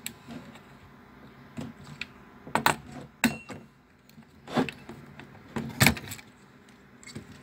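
Irregular plastic clicks and knocks as the push-pin fasteners of an Intel stock CPU cooler are twisted and pulled free and the cooler is lifted off the motherboard. The loudest knock comes near the end.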